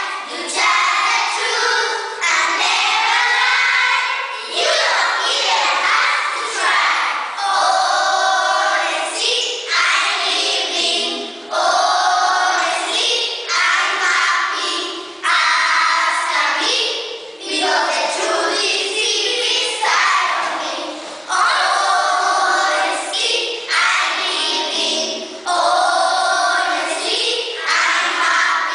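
Group of children singing a song together in unison, in short phrases with brief breaks between them.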